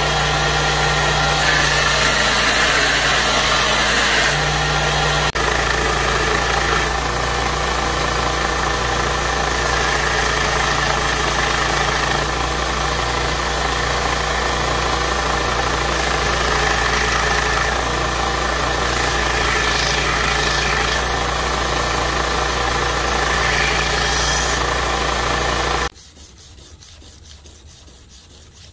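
Belt grinder running steadily, its abrasive belt grinding a steel knife blade with a constant motor hum under a grinding hiss. About 26 seconds in it cuts off, leaving quiet rubbing of abrasive paper by hand on the blade.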